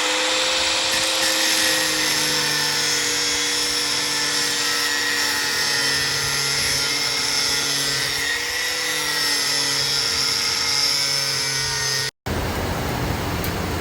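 Angle grinder with a cutting disc running steadily as it cuts through a motorcycle exhaust pipe, a loud high-pitched whine whose pitch sags slowly under the load. It stops abruptly about twelve seconds in, and a different steady noise follows.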